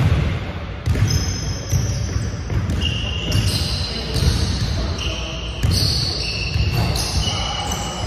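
Basketball dribbled on a hardwood gym floor: low thumps about twice a second. Sneakers squeak in short, high chirps several times as players cut and stop.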